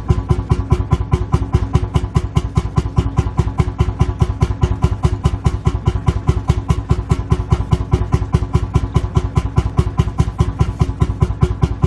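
Lanz Bulldog's single-cylinder two-stroke hot-bulb engine idling, a steady, even beat of firing strokes several times a second.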